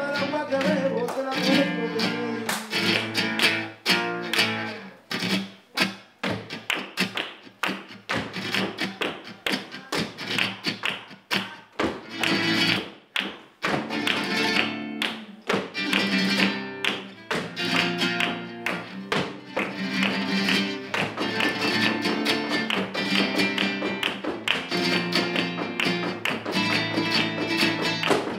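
Live flamenco: an acoustic flamenco guitar playing under rapid percussive strikes from hand clapping (palmas) and the dancers' shoe taps on the wooden floor.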